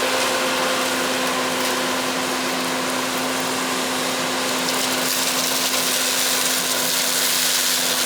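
Combine harvester running while cutting soybeans with a draper header: a steady machinery drone with a constant hum, unbroken throughout.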